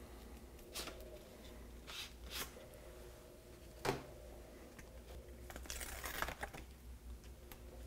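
Faint rustling and crackling of paper as a New55 peel-apart sheet film packet is handled and peeled apart, with a few light clicks and a longer rustle about six seconds in.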